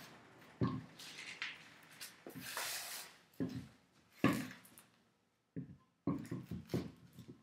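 A car wheel being lifted and worked onto the hub's wheel studs: irregular knocks and scrapes of the tire and steel rim against the hub, in short bursts with pauses between.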